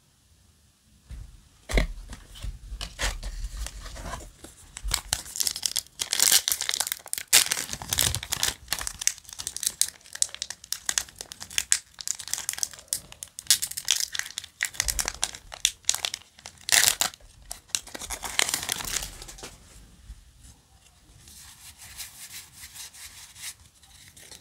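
Foil Yu-Gi-Oh! booster pack wrapper being torn open and crinkled in the hands: a long run of sharp crackles and tearing, trailing off into a quieter rustle near the end.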